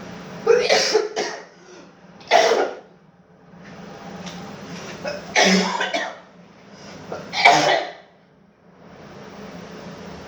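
A person with COVID-19 coughing in four separate bouts a couple of seconds apart, each bout under a second long.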